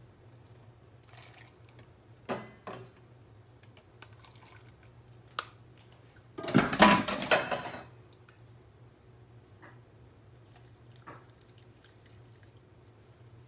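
Hot pickling brine being ladled and poured into canning jars, with clinks of the ladle against the pan and funnel and a loud clatter of stainless cookware lasting over a second about halfway through. Near the end the brine is poured from a saucepan straight into a jar of sliced cucumbers as a faint trickle.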